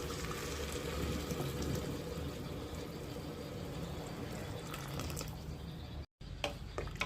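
Water running or pouring steadily into a vessel, cut off abruptly about six seconds in, followed by a few sharp clicks.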